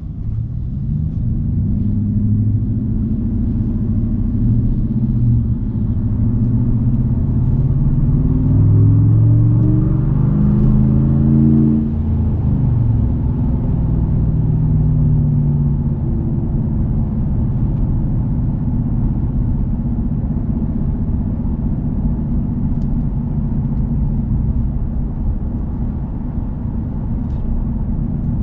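Inside the cab of a Ram 1500 with a 5.7 Hemi V8 and Borla S-Type cat-back exhaust, under way: the exhaust note rises in pitch as the truck accelerates over the first twelve seconds or so. It then settles to a steady low rumble at cruising speed.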